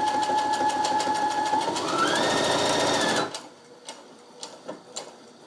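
Baby Lock Brilliant computerized sewing machine sewing a straight stitch through several layers of folded fabric, with rapid even needle strokes and a motor whine that drops in pitch, holds, then rises again. It stops suddenly a little over three seconds in, followed by a few faint clicks.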